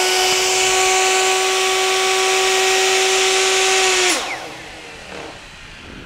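Portable electric router running at full speed as it cuts a 2 mm-deep decorative line along a wooden board: a steady high whine over a hissing cut. About four seconds in it is switched off, and its pitch falls as the motor spins down.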